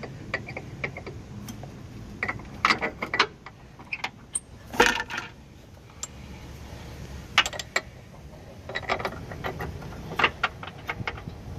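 Metal clicks and clinks of a wrench on bolts as the new engine mount's bolts are put back in and tightened, coming in irregular clusters of quick clicks.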